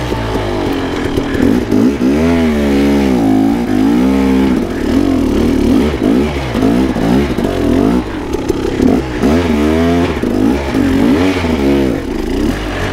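KTM 300 XC-W dirt bike's two-stroke single-cylinder engine running and being revved again and again, its pitch rising and falling several times over a steady low running note.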